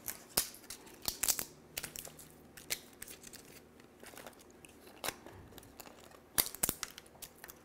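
Scattered light clicks, taps and rustles of hands and vegetable pieces being handled in a metal roasting pan.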